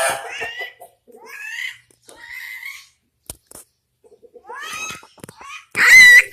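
Cat meowing about five times in short rising calls, the last one, near the end, the loudest.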